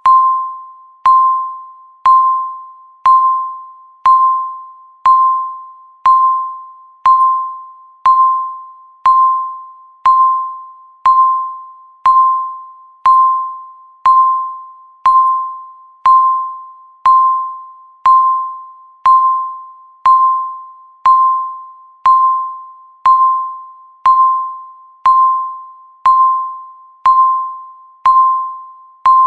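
Countdown timer beeping once a second: a single pitched electronic beep that starts sharply and fades away before the next one.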